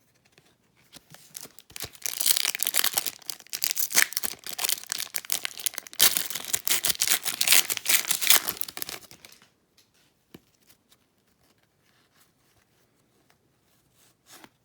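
Wrapper of an Upper Deck Series One hockey card pack being torn open and crinkled. It starts about a second in and stops suddenly after about eight seconds, leaving only a few faint ticks of card handling.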